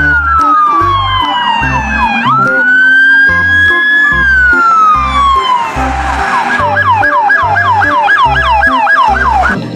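Police siren wailing in slow up-and-down glides, then switching about six seconds in to a fast yelp of about three or four sweeps a second, over a steady low beat.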